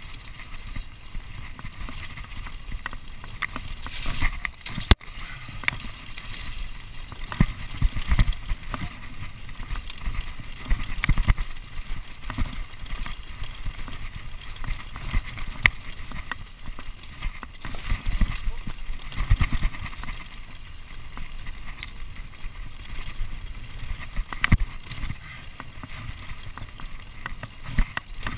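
Mountain bike descending a rough dirt trail at speed: a continuous irregular clatter and rattle of knocks as the bike jolts over bumps, over the rumble of tyres on dirt.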